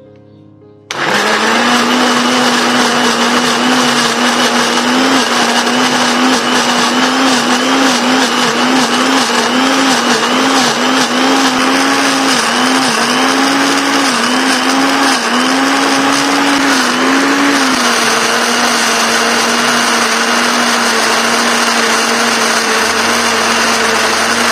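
Electric blender switching on about a second in and running at full speed, grinding whole chilies, peppercorns and roots into a spice paste. The motor's pitch dips and wobbles repeatedly through the middle, then holds steady as the mixture turns smooth.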